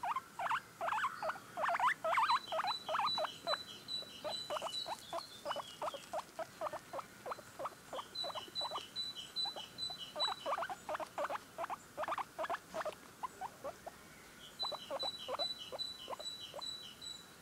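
Guinea pig chewing lettuce, a quick irregular run of small wet crunches several times a second, pausing briefly now and then.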